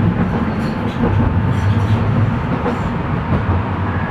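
Ganz-MÁVAG metro car of Budapest's M1 line running through the tunnel, heard from inside the car: a steady rumble broken by a few sharp clicks.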